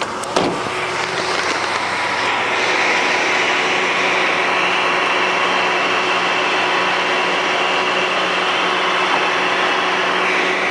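A 2006 Jeep Liberty's 3.7-liter six-cylinder engine running at idle, heard as a steady, loud whooshing hum with a sharp click about a third of a second in.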